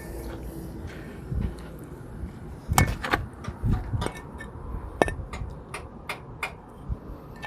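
Scattered clicks and light metal knocks of the oil cooler's parts and hand tools being handled, over a low background rumble.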